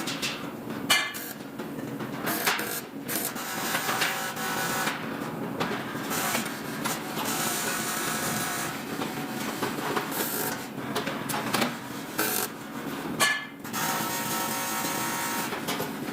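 Metalworking noise: a hissing, buzzing run that stops and restarts several times, with short knocks and clatter in the gaps.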